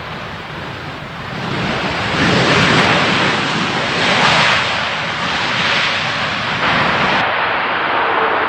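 Jet airliner engine noise swelling as a landing aircraft passes, loudest in the middle with several surges, mixed with wind buffeting the microphone.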